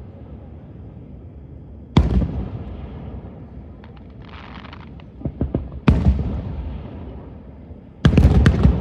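Fireworks shells bursting overhead: a single boom about two seconds in and another about six seconds in, each rolling away in a long rumble. Between them come scattered small crackles and a short hiss, and near the end a quick volley of cracks.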